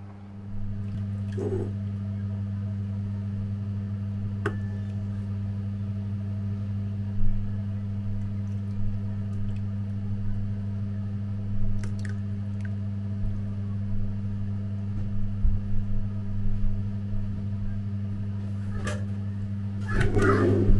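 Steady low electrical hum from a running kitchen appliance motor, with a few light clicks and knocks and a short clatter near the end.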